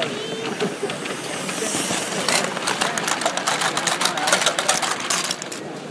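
A live-steam garden-scale model train passing close by: a hiss of steam from the locomotive about two seconds in, then rapid clicking and clatter of the wagons' wheels over the rail joints and points, stopping shortly before the end.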